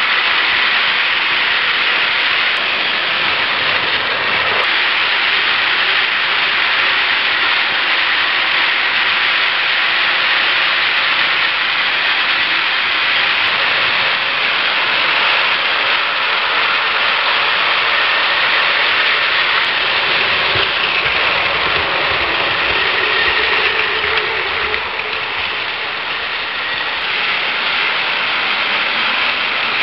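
Many battery-powered Plarail toy trains running at once on plastic track: a steady mechanical whir of small electric motors and wheels.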